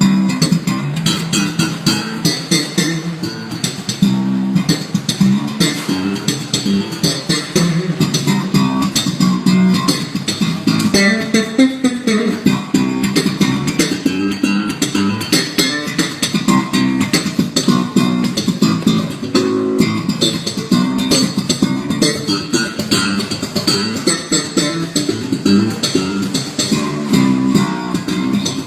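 Electric bass guitar played in a busy, fast line of plucked notes, with sharp attacks and the weight in the low end.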